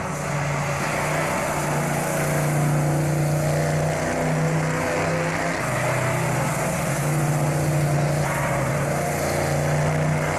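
Racing car engine running hard round the circuit on an early Ford Mustang saloon racer, with a steady note that steps up and down in pitch a few times, over a constant rushing noise.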